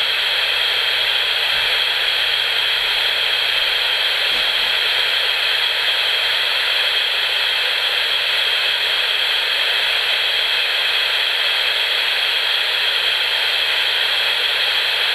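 FM radio tuned between stations at 89.1, hissing with steady white-noise static.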